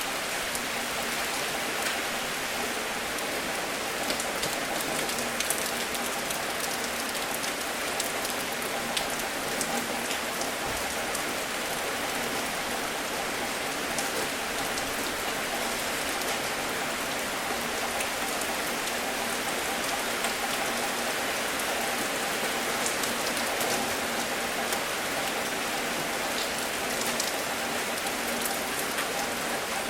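Steady rain falling on a surface, a continuous hiss with scattered individual drop ticks.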